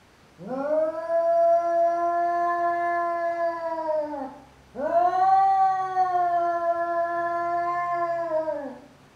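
Domestic cat giving two long, drawn-out yowls of about four seconds each, one after the other with a short break. It is a defensive threat yowl at its own reflection in a mirror, as if facing a rival cat.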